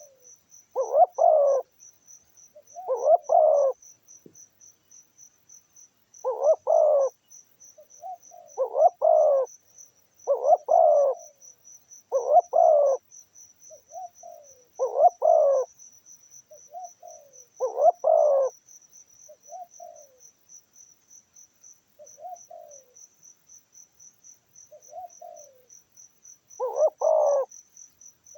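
Doves cooing again and again, loud coos of about a second each with softer short notes between them. Behind them runs a steady, fast-pulsing high insect chirp.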